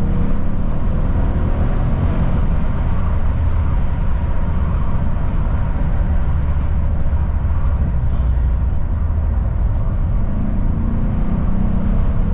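Inside the cabin of a W212 Mercedes-AMG E63 on the move, its twin-turbo V8 gives a steady, low engine note under a haze of road noise.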